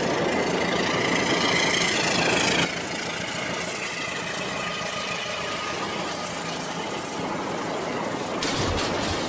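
Battery-powered toy trains running on plastic track, a steady mechanical running noise, with a few knocks near the end.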